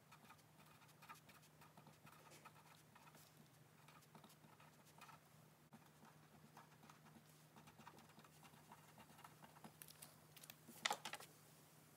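Faint scratching and ticking of a pen writing on a paper card, over a steady low hum, with a brief louder knock near the end.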